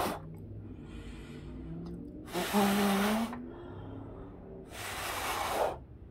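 Two hard, forceful blows of breath on wet paint, each about a second long and a couple of seconds apart, with softer breathing between them. The blows push the paint across the surface.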